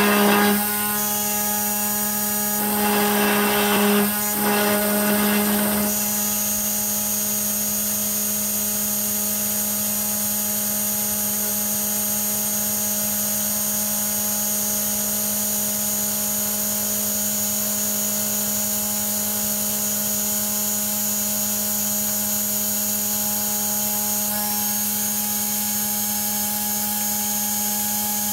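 Home-made CNC router's 2.2 kW water-cooled spindle running at a steady pitch with a high whine, its 5 mm four-flute carbide end mill milling 5 mm aluminium plate in shallow passes. Louder, rougher cutting noise comes and goes a few times in the first six seconds, then the sound holds steady.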